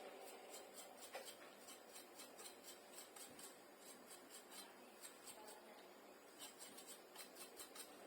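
Faint, quick scratchy strokes of a small brush being worked over a laptop's cooling fan to clear light dust.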